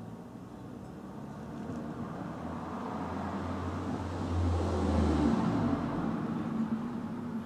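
A road vehicle passing by, its low engine hum and road noise swelling to loudest about five seconds in, then fading away.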